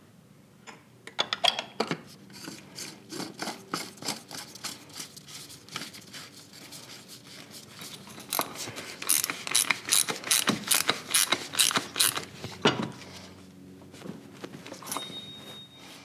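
Ratchet clicking as the oil filter housing cap is screwed down and tightened to torque, with a quick run of rapid clicks in the middle. A short high beep sounds near the end.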